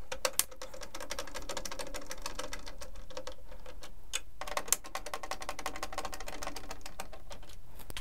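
Small cordless electric screwdriver backing out two Torx 8 screws from the control-panel cover: two runs of a steady motor whir with fast clicking, split by a short pause about three and a half seconds in.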